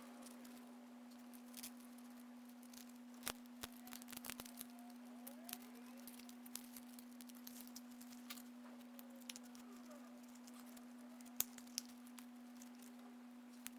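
Scattered light clicks and taps of small tools and parts being handled, over a steady hum.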